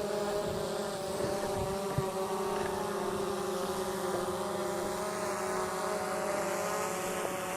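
Autel Evo quadcopter drone in flight, its propellers giving a steady hum made of several held tones that waver slightly.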